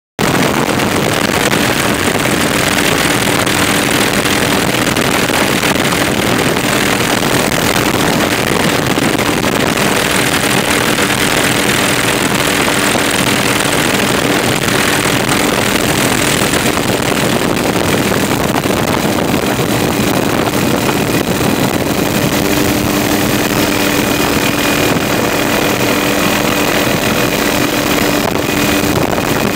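Helicopter cabin noise in flight: engine and rotor drone, loud and steady with a constant hum, and a faint high whine joining in about two-thirds of the way through.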